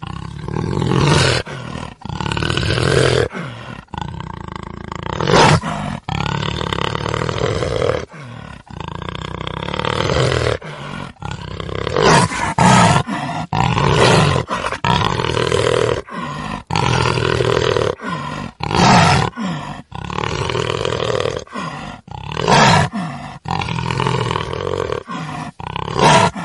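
Tiger roaring again and again, a loud call every second or two with abrupt breaks between them.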